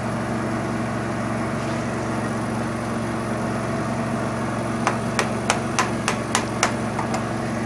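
Steady low machine hum with several evenly spaced tones. From about five seconds in, a quick run of about seven sharp, light clicks as small steel tools are handled on the steel jig and bench.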